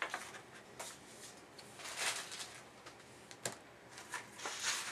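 A sheet of paper being handled and rustled in short, irregular bursts, with one sharp click about three and a half seconds in.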